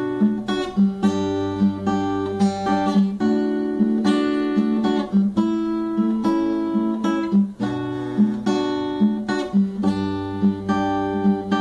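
Acoustic guitar strummed in a steady rhythm, its chords changing every second or two.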